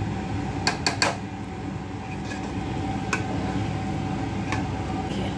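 A spoon knocking and scraping against an aluminium pot while stirring thick kimami sewai, with three quick knocks about a second in and single ones later, over a steady low hum.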